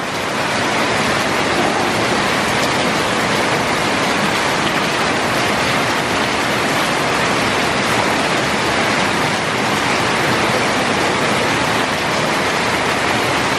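Heavy tropical downpour, absolutely flogging down: a loud, steady, even hiss of rain falling on wet concrete and roofs.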